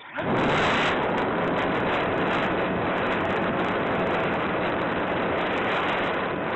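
Electric motor and propeller of a Volantex Sport Cub 500 RC plane, cutting in suddenly just after the start and then running steadily at high throttle for the takeoff, heard from a camera on the plane with wind rushing over its microphone.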